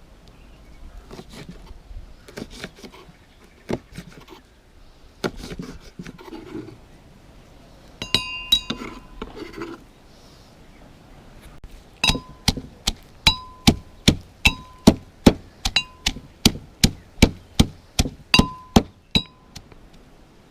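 Kitchen work with metal utensils: scattered clicks and knocks, then about halfway in a steady run of ringing metallic strikes, roughly two a second, that stops shortly before the end.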